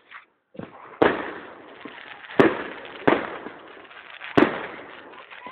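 Fireworks shells bursting overhead: four loud bangs over a few seconds, each followed by a lingering echo, with a smaller pop just before the first.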